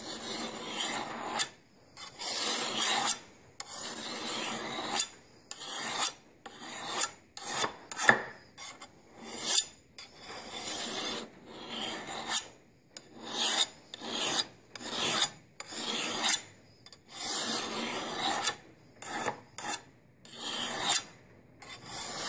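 Flat single-cut chainsaw file (raker file) rasping along the bevel of a steel Tramontina Bolo machete blade in push strokes, about one a second. Short gaps between the strokes are where the file is lifted off the blade on the return stroke, since it cuts only on the push.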